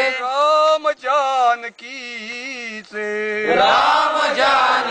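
Men chanting a Marathi patriotic song to a slow tune. For the first three seconds a single voice holds and bends long notes, then many voices come in together about three and a half seconds in.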